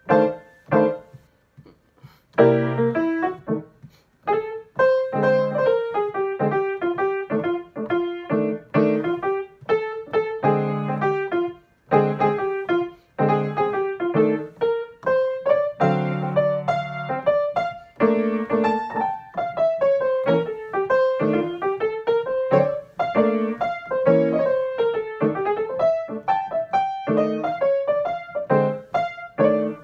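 Grand piano playing jazz over a twelve-bar blues in F: winding single-note right-hand lines over short left-hand chords, in the manner of an improvised blues solo. A brief lull about a second in, then continuous playing.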